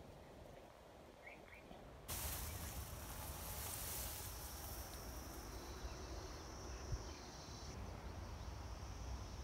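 Field insects trilling in a steady high continuous note over a low rumble, both starting abruptly about two seconds in; before that, only faint ambience with a couple of short chirps.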